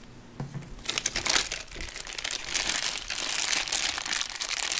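Thin clear plastic wrapper crinkling as a Play-Doh tub is pulled out of it by hand, quiet at first and then crinkling continuously from about a second in.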